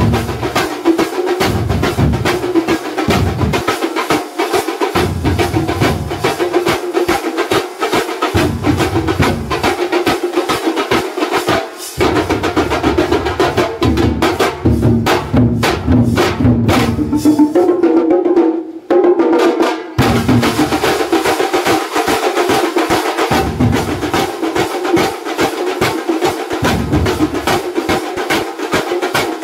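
A drum troupe playing many large stick-beaten drums in a fast, driving rhythm, with hand cymbals clashing on the beat. A little past the middle the deep drum strokes drop out for a couple of seconds, then the full beat comes back.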